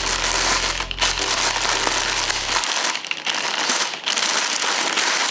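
Tissue paper wrapping crinkling and rustling as a handbag is handled and unwrapped, with a few brief pauses.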